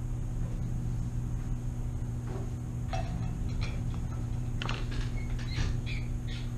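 Steady low hum of room ventilation and equipment, with a scatter of short rustles and taps as papers are leafed through and handled on a desk, mostly in the second half.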